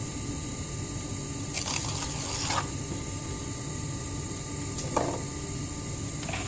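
Electric potter's wheel running with a steady hum, with a scrape of a trimming tool against the spinning clay for about a second, starting a second and a half in, and a shorter scrape near the five-second mark.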